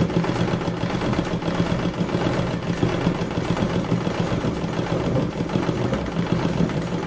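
Treadle sewing machine running at a steady fast pace, its needle stitching continuously while embroidering; it stops at the very end.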